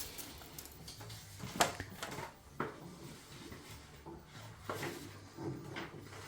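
A few light knocks and rustles from handling the new microwave and its packaging, spaced a second or more apart.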